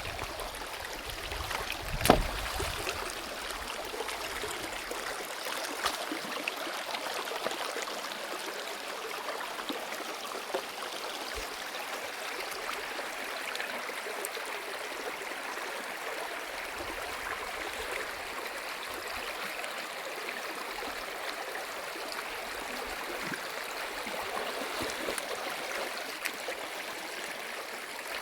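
Stream water running steadily over rocks, with a sharp knock about two seconds in.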